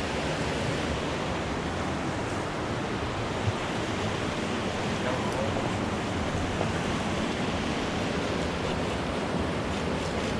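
Steady rushing of river water, an even noise without breaks, with a single light knock about three and a half seconds in.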